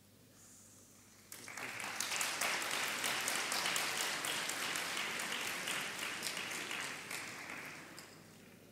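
Audience applauding: the clapping starts about a second in, swells quickly and dies away near the end.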